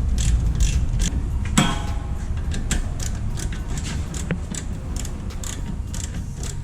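Background music with a steady beat: a regular ticking pulse about twice a second over a continuous low bass.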